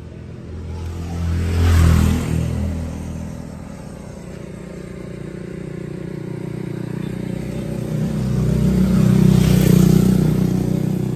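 Kubota L5018 tractor's V2403 four-cylinder diesel engine running close by, a steady low drone that swells louder twice, briefly about two seconds in and for longer near the end.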